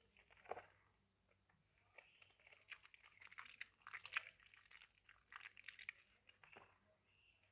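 Soaked, mushy soap being squished and worked by hand in a bowl: quiet wet crackling and squelching in irregular clusters, sparse at first and thickening from about two seconds in.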